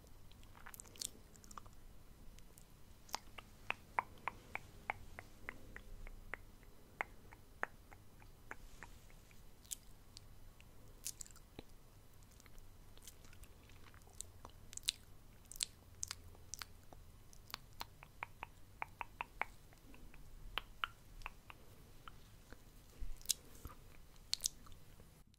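Close-miked ASMR mouth sounds: wet tongue clicks and lip smacks, some in quick runs of several clicks in a row.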